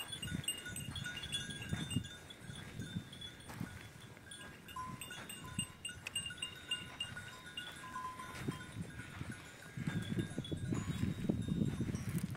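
A herd of goats moving about, with livestock bells ringing and the scuffle of hooves, which grows louder near the end.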